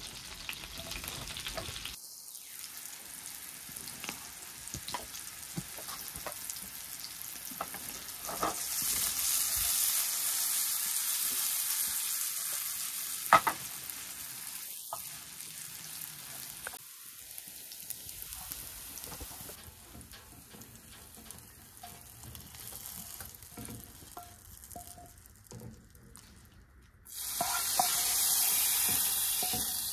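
Small meatballs sizzling as they fry in oil in a pan, with a wooden spoon stirring and scraping among them. Near the end comes a louder burst of sizzling as hot fat is poured from a small pan into a pot of soup.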